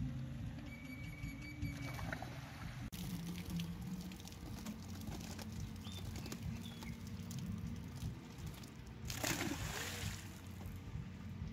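Water trickling and splashing, then a loud rush of splashing about nine seconds in as a load of stocked trout is dumped from the hatchery truck into the pond.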